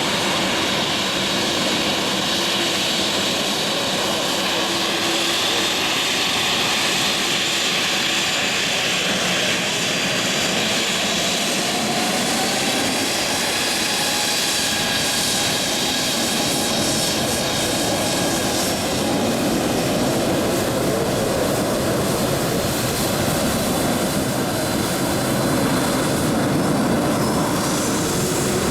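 Azul Embraer E-Jet's turbofan engines roaring at full takeoff power, a loud, steady roar with a faint rising whine near the end.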